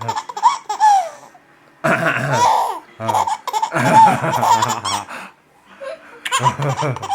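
A small child laughing hard in three bouts: one at the start, a long one from about two to five seconds in, and a short one near the end. Each bout is set off by a man's cough.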